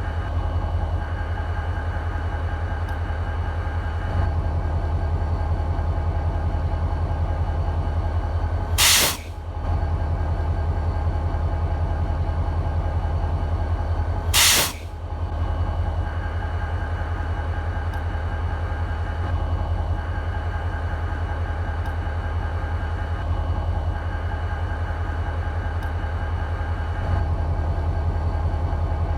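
EMD SD40-2 locomotive's 16-cylinder two-stroke diesel idling with a steady low rumble. Twice, about five and a half seconds apart, a short, loud blast of escaping air hisses over it.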